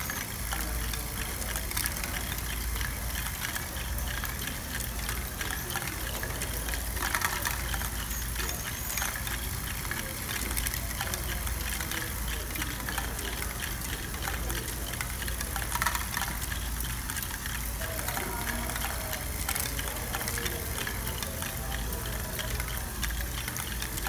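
LEGO Great Ball Contraption running: plastic motors and gears whir steadily while small plastic balls rattle and click through the lifts and chutes. A few sharper clacks come through now and then.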